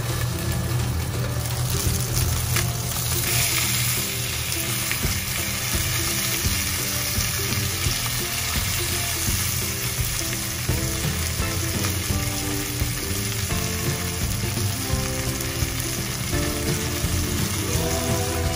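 Chicken thighs sizzling in oil in a frying pan, a steady crackling hiss. The sizzle turns sharper and louder about three seconds in, when the glass lid comes off the pan.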